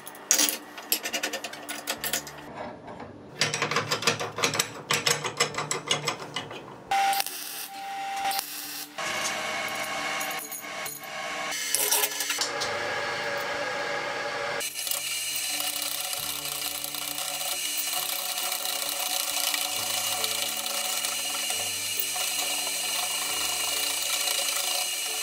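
Metal clicks, rattles and rubbing as a steel lead screw is handled, threaded into and turned by hand in a homemade steel vise body. The first half holds sharp clicks and knocks; from about midway it settles into steadier rubbing of the threaded rod.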